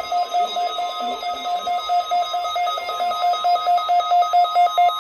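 Electronic weather-radio alert alarm beeping rapidly, about five beeps a second: a steady high tone pulsing on and off, growing louder over the last couple of seconds.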